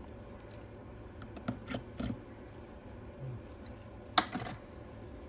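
Light clicks and taps of small tools and parts being handled during an iPad teardown: a few scattered clicks, then one sharper click about four seconds in.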